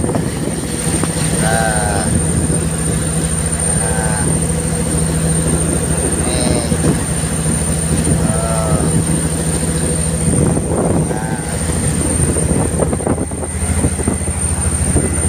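Fishing boat's engine running steadily under way, a loud low drone, with sea water sloshing and splashing across the deck.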